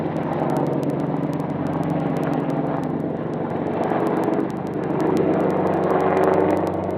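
A loud engine running steadily, with rapid crackling clicks over it; it cuts off suddenly at the end.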